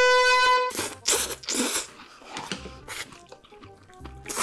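A loud, held musical tone cuts off under a second in. It is followed by a few short, wet slurping and chewing noises as stringy melted cheese is eaten, with another slurp near the end, over faint background music.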